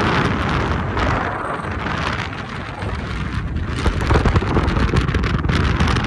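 Wind buffeting the microphone in gusts: a rushing noise with a deep rumble, swelling again from about four seconds in.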